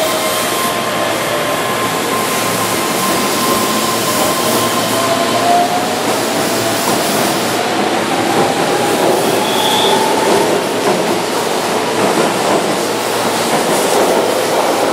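Keihan 13000-series electric train pulling away from the platform as its cars pass close by. A motor whine, several steady tones with one rising in pitch about halfway through, sits over the running noise of wheels on rail.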